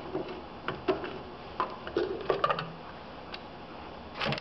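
Screwdriver clicking against screws, then clicks and light knocks as the secondary air intake housing of an oil burner is lifted off the burner body and handled. The knocks come irregularly, a dozen or so short sharp ones, with a cluster near the middle and another near the end.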